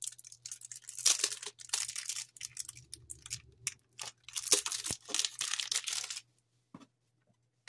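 Packaging of a card display stand being torn open and crinkled by hand, in irregular bursts for about five seconds. There is a single sharp knock about five seconds in, and the sound stops a little before the end.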